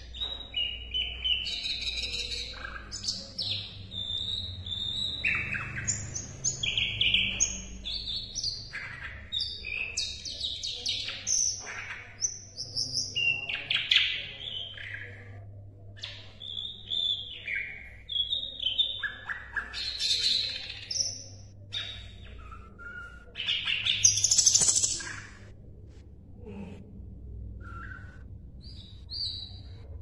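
Caged sikatan londo songbird singing a fast, varied song of chirps, short trills and quick whistled phrases, loudest about six seconds before the end, then thinning to a few scattered notes. A faint steady low hum runs underneath.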